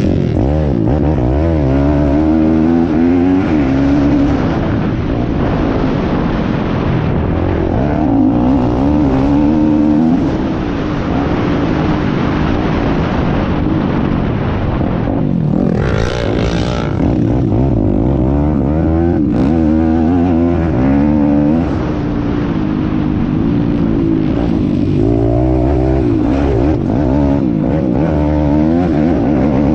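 Piranha P190 pit bike engine being ridden hard, its pitch repeatedly climbing and dropping with throttle and gear changes. A short rush of hissing noise comes about halfway through.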